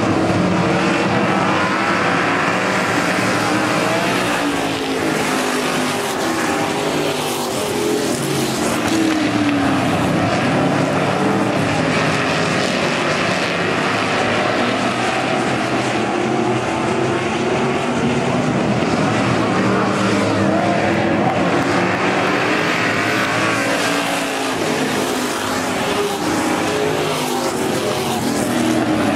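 A pack of dirt-track stock car engines running together, their pitch rising and falling in overlapping sweeps as the cars go through the turns and down the straights.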